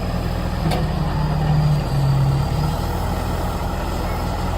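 A steady low engine running throughout, with a brief stronger low tone about a second in.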